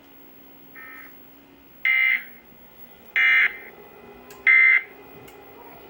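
Emergency Alert System end-of-message data bursts, the digital code that closes an EAS test. A faint burst about a second in is followed by three loud, short bursts of shrill data tones, about 1.3 s apart.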